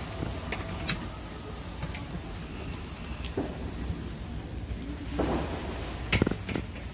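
Night insects chirping in a steady, high-pitched pulse, a few times a second, over a low background rumble. A few sharp pops break in, the loudest near the end.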